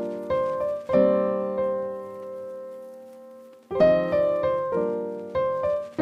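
Background music: piano-like keyboard chords struck in quick succession. A long chord dies away about a second in, and new chords start again near four seconds in.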